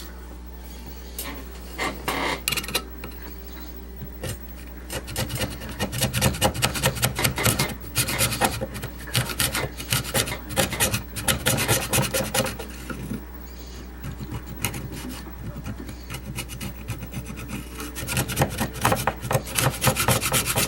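A blade scraping and rubbing old rotted foam surround off a speaker cone in quick, repeated rasping strokes: a few at first, a long fast run from about five seconds in, lighter scraping after, and another fast run near the end.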